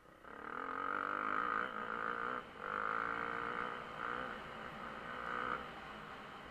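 Dirt bike engine revving as it accelerates, heard muffled, its pitch rising and falling. The revving breaks off briefly about two and a half seconds in and stops a little before the end.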